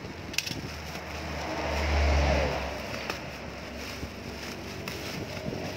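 A motor vehicle passing by: a low engine rumble swells to a peak about two seconds in and then fades away. There are a few sharp clicks from handling objects close by.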